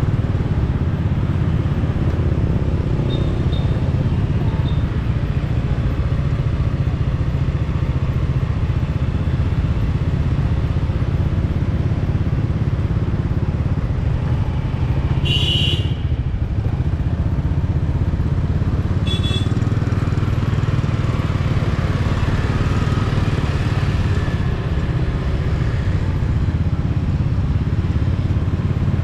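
Motorcycle engine running steadily while riding, with a constant low rumble of engine and wind noise. Two brief high-pitched tones cut through a little after halfway.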